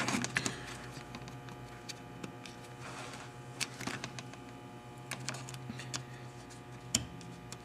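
Light, scattered plastic clicks and taps as push-in fasteners are fitted into a new plastic windshield cowl panel for a BMW E36 M3, over a faint steady hum.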